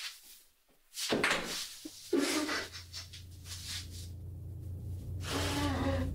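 A frightened person's heavy, gasping breaths and sobs. Under them a low rumbling drone sets in about a second in and slowly swells.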